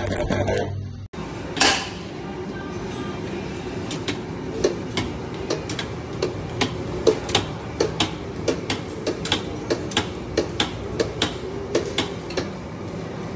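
Brief music, then an electric deli meat slicer running with a steady hum and regular clacks about three times a second as it slices meat.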